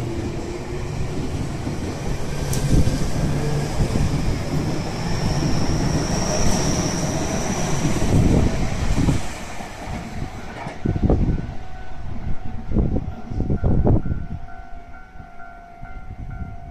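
Tobu 50090 series electric train pulling away from a station, accelerating with a rising motor whine over the rumble and clatter of its wheels on the rails. After about nine seconds it fades, leaving a few separate wheel clacks over rail joints and a faint steady tone near the end.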